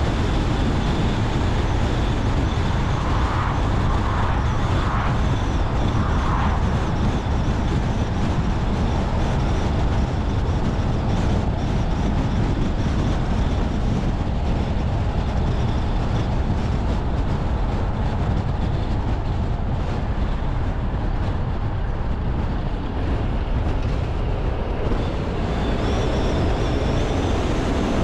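Car driving along a road: a steady, unbroken rumble of tyre and engine noise.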